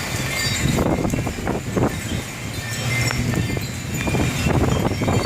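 Wind chimes tinkling in gusty storm wind, with wind buffeting the microphone in surges.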